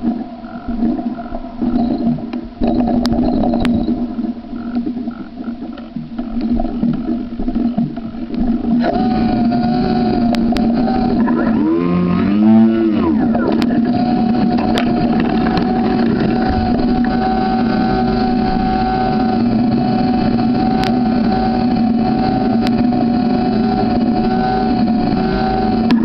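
Brushless electric motor of a remote-control fishing boat spinning its air propeller. It runs unevenly at first, then settles about a third of the way in into a steady high whine whose pitch dips and recovers once shortly after.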